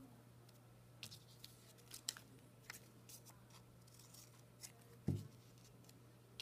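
Faint rustles and small clicks of cut paper scraps being picked up and laid down on a collage board, with a dull thump about five seconds in, over a steady low hum.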